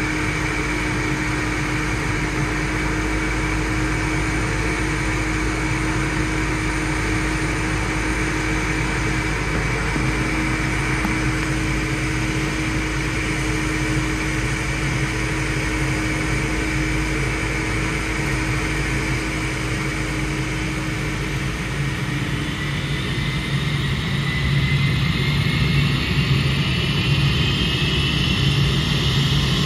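Ilyushin Il-76TD freighter at close range during pushback: a steady turbine whine over a low rumble. In the last several seconds a second whine climbs in pitch and the noise grows louder as engine start-up begins.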